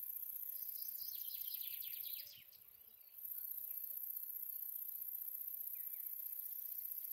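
Bush-cricket stridulating in a continuous, very high-pitched buzz that breaks off for about a second a little after two seconds in, then resumes. About a second in, a shorter rattling call runs over it, falling in pitch.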